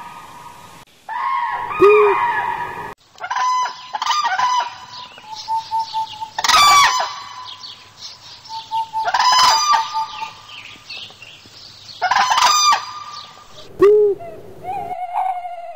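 A man imitating poultry with his voice: a string of short rooster- and hen-like calls with gliding pitch, broken by abrupt cuts, and a brief low hoot near the end.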